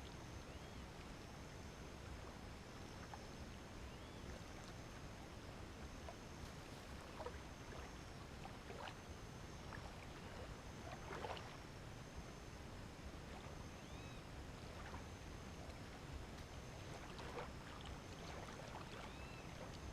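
Faint outdoor night ambience: a steady low rumble with a thin high tone that comes and goes. Scattered faint chirps and a few soft knocks come about halfway through.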